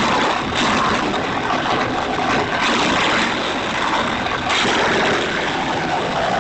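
Jansen GTS 1500E compact wood chipper, with its 15-horsepower engine, running loudly and shredding branches: a dense, noisy din that swells and eases every second or two.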